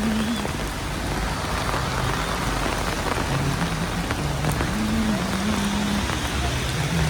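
Heavy rain falling steadily in a dense, even hiss, with a low hum that comes and goes underneath.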